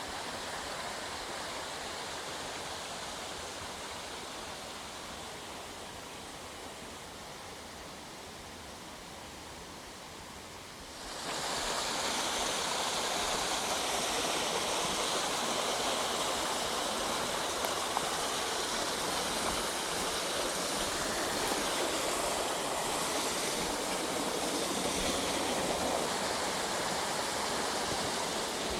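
Steady rushing of a forest stream. About eleven seconds in it suddenly grows louder and brighter.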